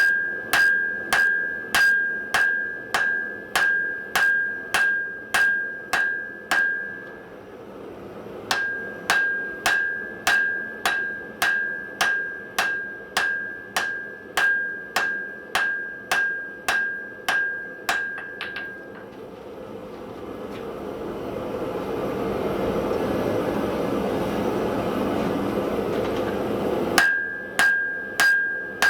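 Hand hammer striking steel on an anvil in steady forging blows, about two a second, each blow ringing at the same pitch while a san mai seax blade is forged. The hammering stops for several seconds while a steady rushing noise rises, then starts again near the end.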